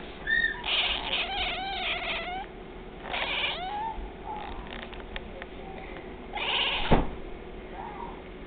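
A house cat meowing in reply to a person's cough or sneeze: one long drawn-out meow, then a shorter one about three seconds in. A short harsh burst comes about six and a half seconds in.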